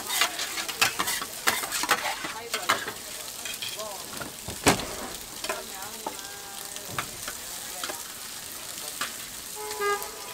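Two metal spatulas clacking and scraping on a flat iron griddle, chopping and turning cabbage and greens over a steady sizzle of frying.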